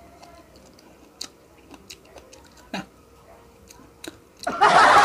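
Eating juicy pineapple chunks up close: faint wet chewing with scattered mouth clicks, then a loud rushing noise that starts about four and a half seconds in and lasts over a second.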